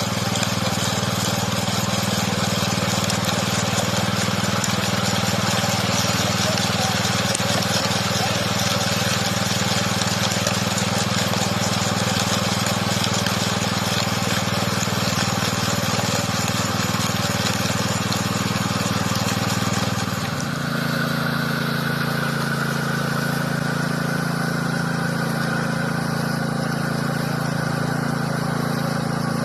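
An engine running steadily; about twenty seconds in, its note shifts to a slightly higher, smoother pitch.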